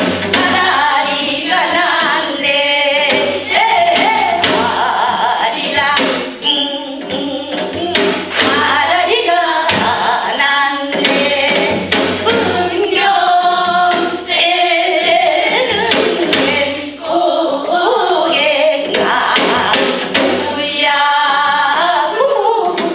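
A group of women singing a Korean folk song (minyo) together, accompanied by steady drum strokes.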